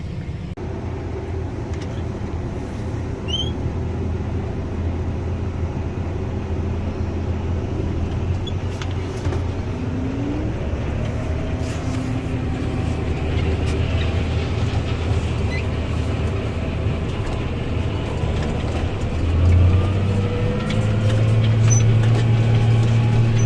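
Tractor engine heard from inside the cab, running steadily under load, with the engine getting louder and rising slightly in pitch about 20 seconds in.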